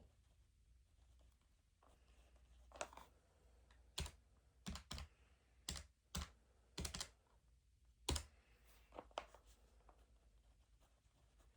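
Keys being tapped in short, irregular runs, about a dozen sharp clicks starting about three seconds in and stopping a couple of seconds before the end, over near-silent room tone.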